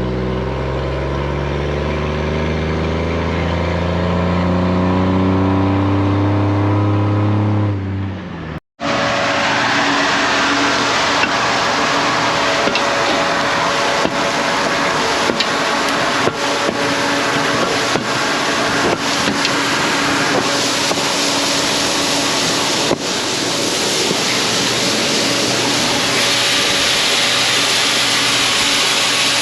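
A grain truck's engine pulls away, its pitch rising as it accelerates. After a cut, grain-unloading machinery runs with a steady rushing roar and a low hum, with scattered light clicks, as the corn load is unloaded.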